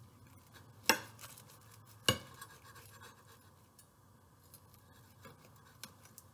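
Chef's knife sawing through a toasted sandwich, with scattered light crackling scratches from the crust. Two sharp clicks, about a second and two seconds in, as the blade knocks against the ceramic plate.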